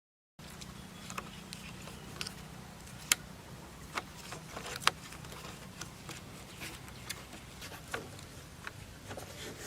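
Scattered sharp taps and knocks, irregular, the two loudest about three and five seconds in, over a steady low hum; the sound cuts in about half a second in after dead silence.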